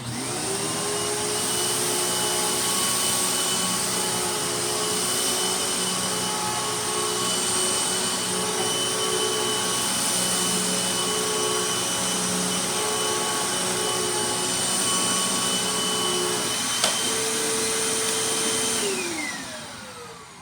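Hoover WindTunnel Max upright vacuum cleaner switched on and running steadily with a high whine while it picks up a test mess, with a single click near the end. It is then switched off, and the whine falls away as the motor spins down.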